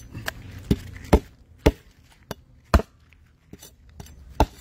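Heavy Chinese cleaver chopping through a mutton snapper's tail on a wooden cutting board: about seven sharp chops at uneven intervals, with a pause of over a second before the last one.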